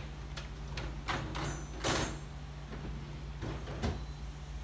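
A handful of short clicks and knocks from the dishwasher's cutlery basket and racks being handled, the loudest about two seconds in, over a steady low hum.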